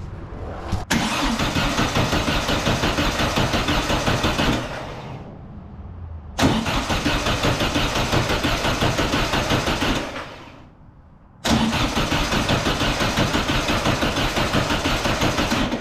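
Starter cranking a 1600cc VW air-cooled flat-four with the ignition off, so it turns over without firing: three bursts of about four seconds each with short pauses between, each a steady rhythmic chug. It is being turned over to circulate the fresh oil before the level is checked.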